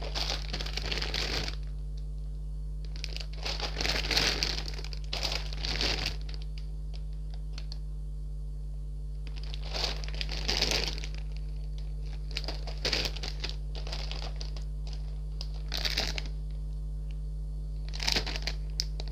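Clear plastic bags of model-kit runners crinkling as they are handled, in about six separate bursts with pauses between. A steady low hum runs underneath.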